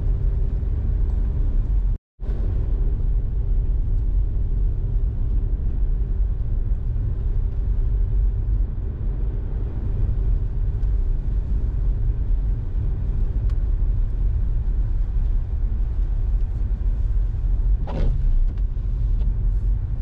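Car driving, heard as a steady low rumble of engine and road noise. The sound cuts out for an instant about two seconds in, and there is a short bump near the end.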